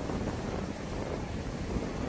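Wind buffeting the microphone as a steady low rumble, over small waves washing onto a sandy beach.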